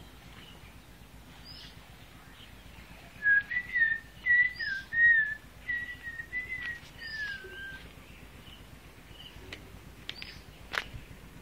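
A person whistling a short tune of about a dozen quick notes that waver up and down in pitch, starting about three seconds in and lasting about four seconds. A single sharp click comes near the end.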